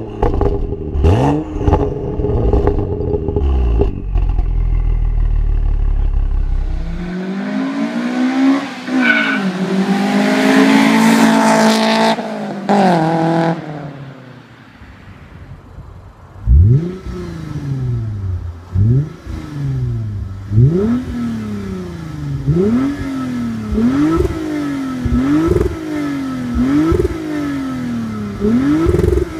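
Car exhausts revving. At first, short throttle blips from a BMW 335i's turbocharged straight-six. Then a car accelerates hard up through the revs. Then a stationary engine is revved over and over, each rev rising sharply and dropping back, about one a second by the end.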